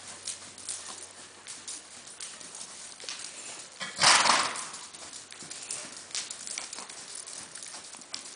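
A horse's hoofbeats in arena sand, a run of soft, uneven knocks as it goes around under a rider. About four seconds in there is one loud, breathy blowing noise lasting about half a second.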